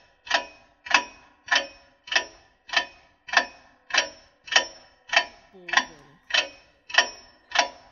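Clock ticking in a steady, even rhythm: a sharp tick with a brief metallic ring about every 0.6 seconds.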